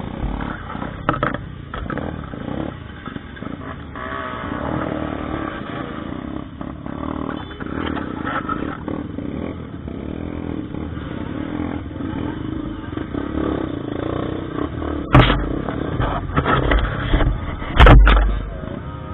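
Trail motorcycle engine running as it rides a rough track, with clattering knocks from the ride; two loud jolts near the end.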